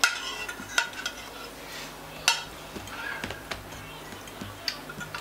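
Metal fork clinking and scraping against a ceramic plate while eating: about six separate sharp clinks, the loudest about two seconds in, with a little ring after it.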